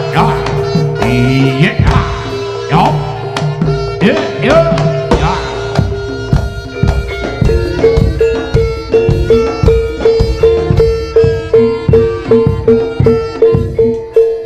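East Javanese jaranan ensemble music: kendang hand drums play pitch-bending strokes over a held tone, and from about halfway the drumming settles into an even, quick beat.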